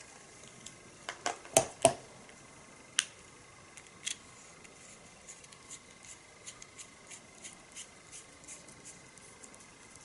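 Small clicks and ticks of the Eleaf iJust Start's tank being handled and screwed onto its battery by hand. There are a few sharper clicks in the first two seconds and one each about three and four seconds in, then a run of faint ticks, two or three a second, as the threads turn.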